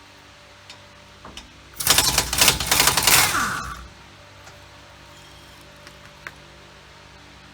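An impact wrench hammers rapidly for about two seconds, loosening a rear hub-assembly retaining bolt, then winds down.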